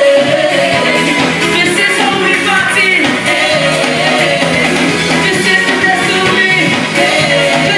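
Live calypso: a calypsonian singing over a backing band with saxophones, played at a steady loud level.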